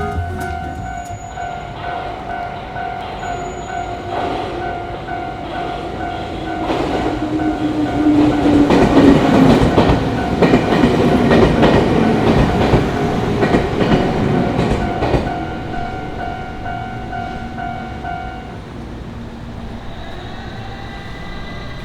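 Railway level-crossing warning bell ringing in a quick, steady rhythm while a train passes. The train's wheel noise swells to its loudest midway, with a low tone sliding down as it goes by, then fades. The bell stops near the end.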